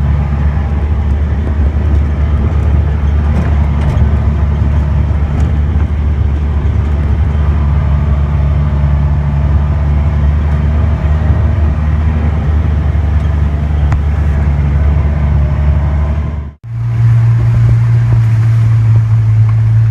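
Engine of a Ranger side-by-side utility vehicle running steadily as it is driven down a muddy trail. Near the end the sound cuts out for an instant, and the engine hum then carries on at a steadier, slightly higher pitch.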